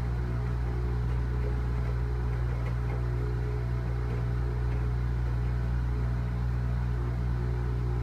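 General Electric front-loading washing machine running, its motor humming steadily as the drum turns the laundry.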